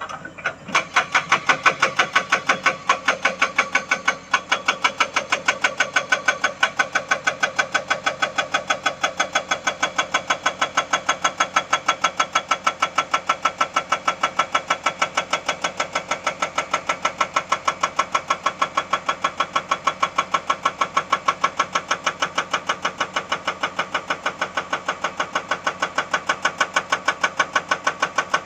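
Excavator-mounted hydraulic rock breaker hammering on hard rock in a rapid, even rhythm of blows. It starts about half a second in and pauses briefly about four seconds in.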